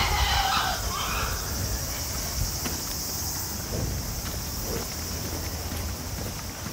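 Insects droning steadily, a high even drone.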